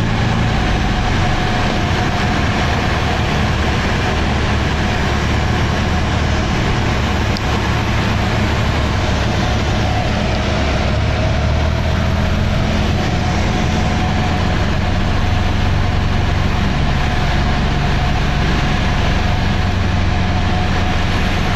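Steady drone of a propeller-driven light aircraft's engine and propeller heard from inside the cabin, with a constant low hum.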